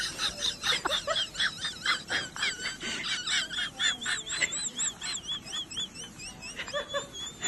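A cat licking rapidly at its collar, about three or four licks a second, with its metal ID tag jingling. A high warbling tone rises and falls in step with the licks and tails off near the end.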